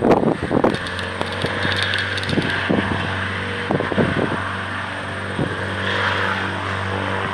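Propeller aircraft engine running steadily, a low even hum that sets in under a second in, with wind buffeting the microphone in irregular knocks, heaviest near the start.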